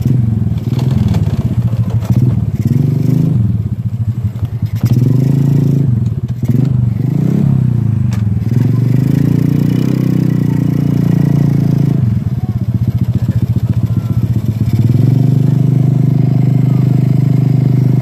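Motorcycle engine running while riding, its pitch rising and falling with the throttle several times, then holding steady. About twelve seconds in it drops to a slower, uneven beat for a few seconds before picking up again.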